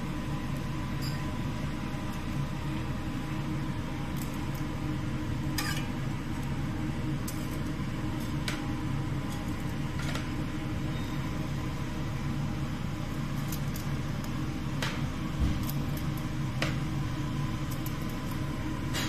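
Steady low mechanical hum, with scattered light clicks and taps from plating grilled steak and vegetables with metal tongs beside a steel tray, one a little louder a little past the middle.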